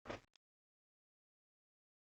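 A brief thump, then a faint click, then silence.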